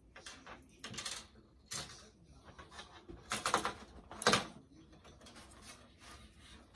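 Toy packaging of card and plastic being handled and pulled apart by hand: irregular short rustles and crackles, loudest at about three and a half and four seconds in.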